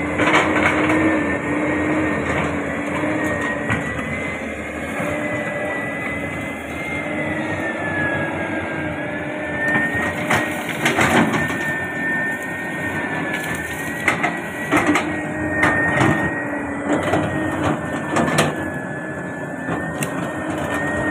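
Caterpillar 320D tracked excavator working: its diesel engine runs steadily under a high whine that drifts slightly up and down in pitch as the load changes. The bucket tears through brush and soil with scattered cracks and crunches, most of them in the second half.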